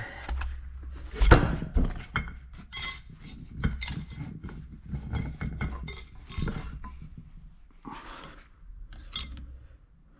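Steel differential internals from a Ford 8.8 Trac-Lok, the spider gears and clutch pack plates, clinking and knocking as they are handled and set down. It is an irregular string of sharp metallic clinks with a little ringing, the loudest knock about a second in.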